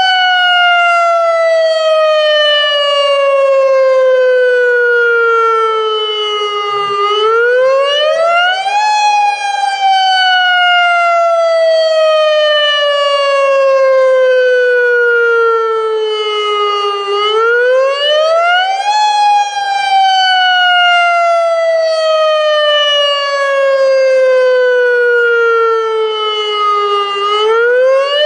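AHAB tsunami warning siren sounding its emergency wail tone, the alert used in real tsunami emergencies. The pitch climbs quickly for about two seconds, then slides slowly down for about eight, and the cycle repeats three times.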